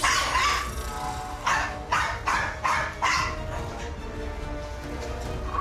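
Small poodle giving a quick run of sharp, wary barks, about six in the first three seconds. Background music runs underneath.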